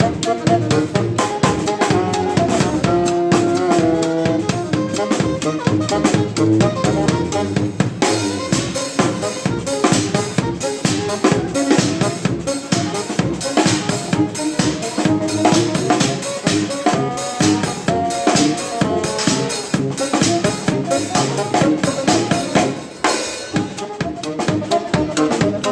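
Street band playing: a drum kit with snare, rimshots and bass drum beating a busy rhythm under held melody notes. The drumming grows denser about a third of the way in and briefly thins out near the end.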